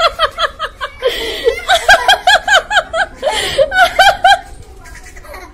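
A young child laughing in a quick, high-pitched string of 'ha's, about four a second: a short run at the start, then a longer run of nearly three seconds that stops about four and a half seconds in.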